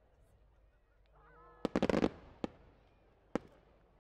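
Aerial firework shells bursting: a quick cluster of sharp cracking reports about two seconds in, then two single bangs, each with a short echoing tail. Just before the cluster there is a brief honk-like pitched sound.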